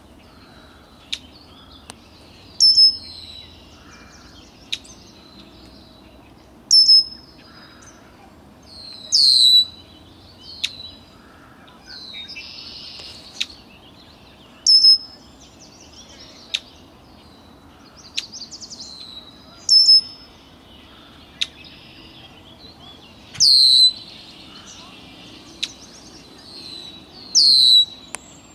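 A bird calling again and again, short loud high-pitched calls every two to four seconds, some sweeping down in pitch, with faint ticks and a brief buzz between them.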